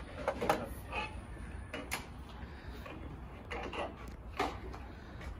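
Plastic grille and headlight trim being pushed and snapped into place on a pickup truck's front end: scattered light clicks and knocks.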